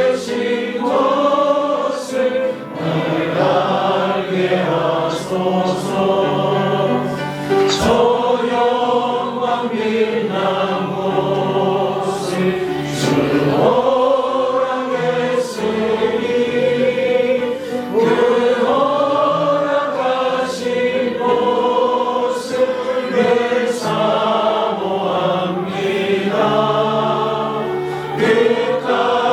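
Many voices singing a hymn together in held, slow phrases, with steady low accompanying notes underneath.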